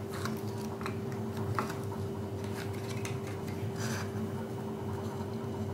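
Paper and cardstock being handled: scattered light rustles and taps as a paper panel is positioned and pressed onto a folded card base. Under it runs a steady low hum.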